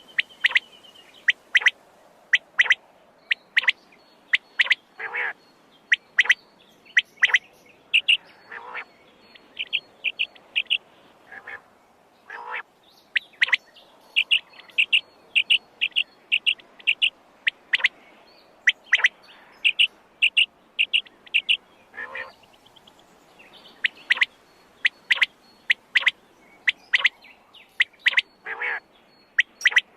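Quail calling: many short, sharp, high calls, some in quick runs of five or six notes, mixed with occasional longer, lower and harsher calls.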